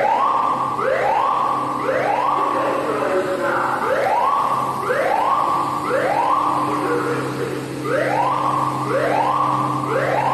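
Fire alarm sounders giving a slow whoop tone: short rising sweeps repeated over and over. More than one device sounds out of step, so the sweeps overlap, over a steady low hum.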